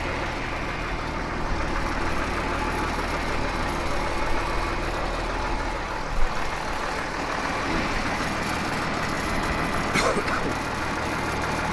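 Engine idling steadily, with a couple of short knocks, one about six seconds in and another about ten seconds in.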